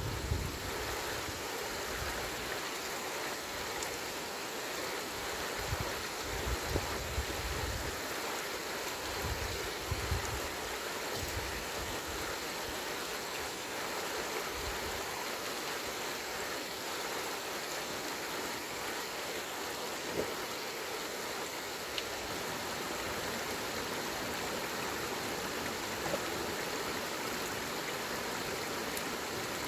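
Steady rush of a small river's water running high after rain. Low, uneven rumbles come and go during the first ten seconds or so.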